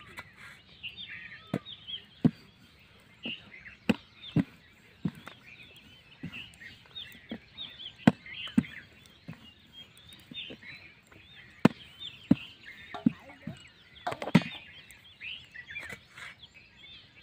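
Irregular sharp knocks and taps, roughly one a second, from a wooden rolling pin and hands working roti dough on an upturned steel pot, with birds chirping busily throughout.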